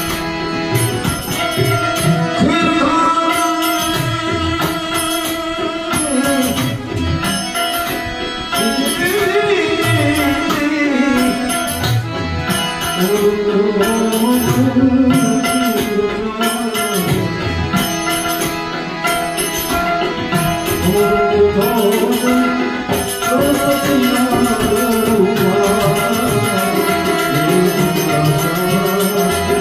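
Harmonium playing with a man singing a devotional santvani bhajan, a melody that rises and falls over held reed chords, with percussion keeping a steady beat.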